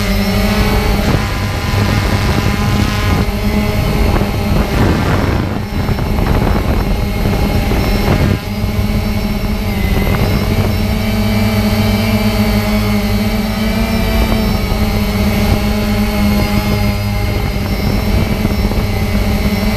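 Quadcopter drone's electric motors and propellers buzzing close to the camera mounted on it, a steady pitched hum that shifts in pitch briefly now and then as the motors adjust.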